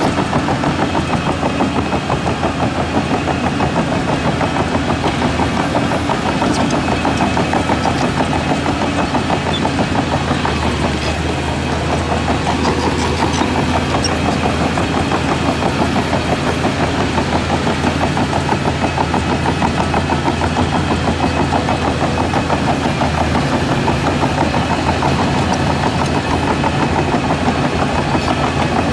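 Heavy earthmoving machine's diesel engine running steadily. A deeper drone strengthens from about ten seconds in and eases off again near twenty-three seconds.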